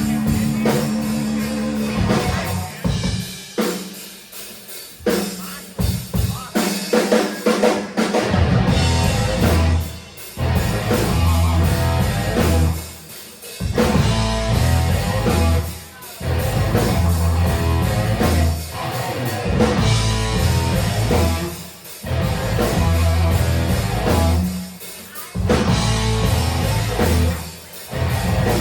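Live rock band playing loud electric guitar, bass and drums. After a thinner stretch of scattered drum hits, a heavy riff comes in about eight seconds in and keeps breaking off and crashing back in every few seconds.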